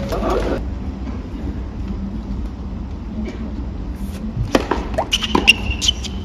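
Tennis racket striking the ball on a serve, with a sharp hit about two-thirds of the way in and further ball hits about a second later as the point starts, over the low steady hum of a stadium crowd. A brief high steady tone sounds near the end.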